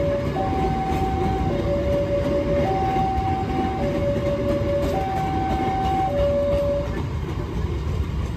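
Railway level crossing warning alarm sounding a two-tone signal, a higher and a lower tone alternating about once a second, stopping about seven seconds in, over a steady low rumble of rail traffic.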